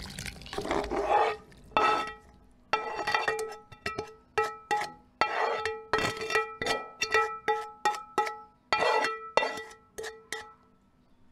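A spatula repeatedly knocks and scrapes thick fruit mixture out of a metal pot, about two knocks a second, each knock setting the pot ringing with the same few tones. A wet, sliding pour comes in the first second or so.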